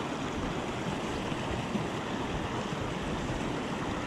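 Small mountain creek running steadily, water splashing over rocks in shallow riffles and little cascades.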